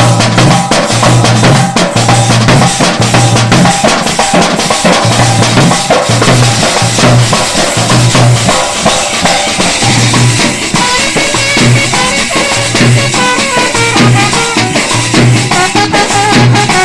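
A street band playing loud music: drums keep a steady pounding beat of about two strokes a second under busy percussion, and from about halfway a melody line rises above the drums.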